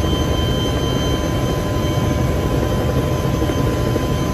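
Military helicopter running close by: loud, steady rotor and engine noise with a few thin, steady high whines over it.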